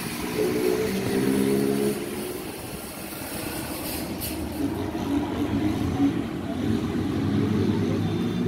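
Helicopter flying overhead, a steady rotor and engine drone whose pitch drifts slowly as it passes. About four seconds in there is a brief hiss.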